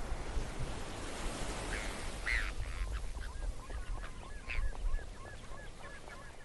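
Birds calling over a steady low background rumble, from a nature soundscape: a few honking calls come about two seconds in, then a run of short repeated chirps, about three a second.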